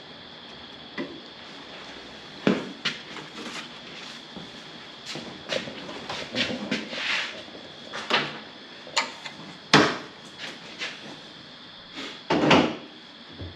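Hand-working noises: irregular clicks, taps and knocks from handling small parts and a hand tool, with a sharp louder knock about ten seconds in and a longer burst of handling noise near the end. A faint steady high whine runs underneath.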